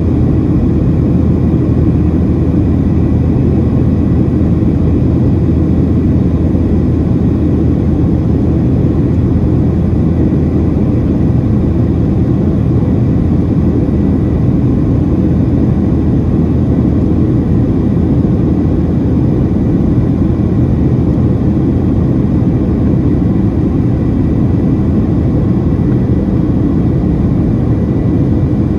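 Steady cabin drone of a Boeing 737-700 in flight, heard inside the cabin: the CFM56-7B jet engines and the rush of air over the fuselage make a deep, even rumble with a faint steady whine above it.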